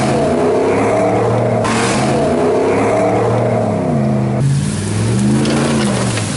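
Pickup truck engines revving hard under off-road driving, the pitch climbing and dropping as the throttle is worked, in three short clips cut together, with abrupt changes about a second and a half in and again past four seconds.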